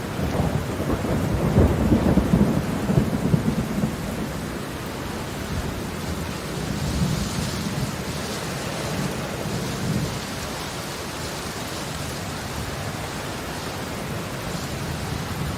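Heavy rain falling steadily, with a low rumble of thunder in the first few seconds that fades into the rain.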